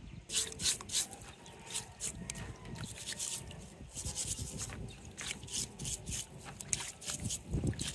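Steel wool scouring pad scrubbing crab shells in a bowl of water, in quick, irregular scratchy strokes.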